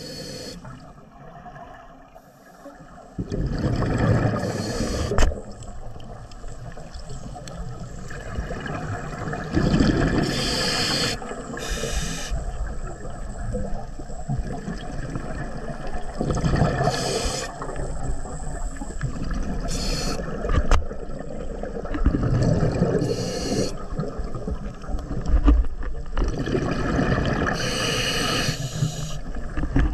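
Scuba diver breathing through a regulator underwater: a swell of exhaled bubbles and regulator hiss about every six seconds, five times in all, with quieter gurgling in between.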